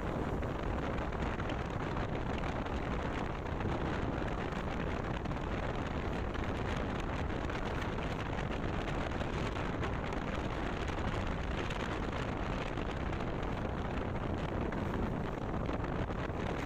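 Steady wind rushing over the microphone of a camera mounted on a moving motorcycle, with the bike's running and road noise mixed in underneath.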